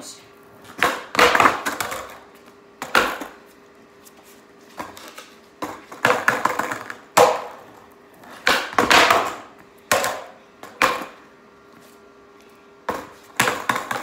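Skateboard on a concrete floor during kickflip attempts: a string of irregular sharp wooden clacks as the tail pops and the deck slaps down, some followed by a second or so of wheels rolling and scraping.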